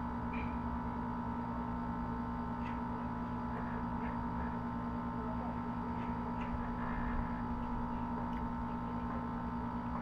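Steady electrical hum made of several unchanging tones, with a few faint soft ticks.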